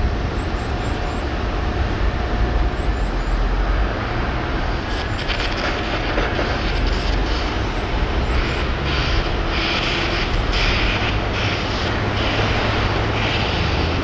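Steady, loud outdoor rumble and hiss. From about five seconds in, irregular bursts of higher hiss come and go.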